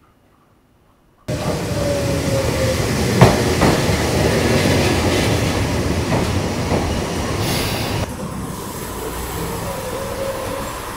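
A train running on the rails, starting suddenly after a quiet first second: steady rumbling with clicks from the wheels and a brief squeal, and a sharp click about three seconds in. It becomes quieter about eight seconds in.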